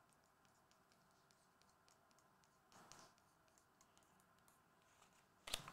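Near silence: quiet room tone with a few faint ticks, a soft rustle about three seconds in, and one sharper click or knock near the end.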